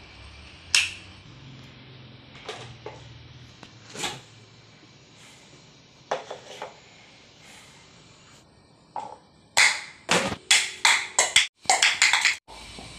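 A wall light switch clicks about a second in, then a few light clicks and knocks as a fridge is opened and a plastic cup handled. From about nine seconds there is a fast run of loud slapping footsteps on a tiled floor.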